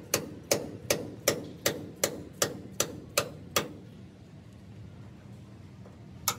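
A hammer strikes a steel truck chassis in a steady rhythm, about ten ringing blows at just under three a second. They stop a little past halfway, and after a pause of two to three seconds one more blow lands right at the end.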